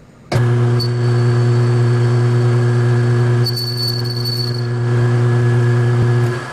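Lathe motor switching on abruptly, running with a steady electric hum, and shutting off just before the end, during a cutting pass with a carbide tool on a plastic gearbox housing. A thin high whine sounds over the hum for a few seconds in the first half.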